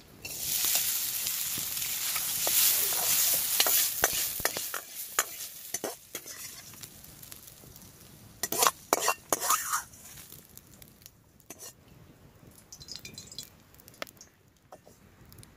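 Diced food dropped into a hot steel wok over a campfire sizzles loudly at once, and the sizzle thins out after about five seconds. Past the middle comes a short run of sharp scrapes and clinks as the food is stirred in the pan, and a faint sizzle goes on afterwards.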